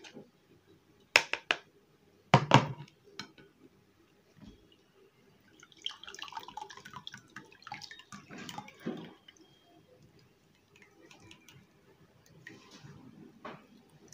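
Lemon juice concentrate dripping and trickling through a plastic sieve into a glass bowl as the pulp is strained out, with more juice poured in near the end. A few sharp knocks of the wooden spoon and sieve come in the first three seconds, the loudest about two and a half seconds in.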